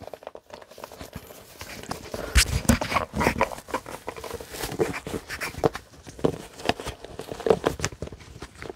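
MIRA Safety CM-8M rubber full-face respirator being pulled onto the face and its head-harness straps tugged tight: irregular knocks, rustles and rubbing of rubber and webbing.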